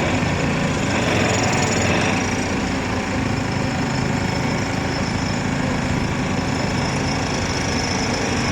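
Excavator-mounted hydraulic pile driver hammering continuously, a fast run of blows too quick to count, with the excavator's engine running under it.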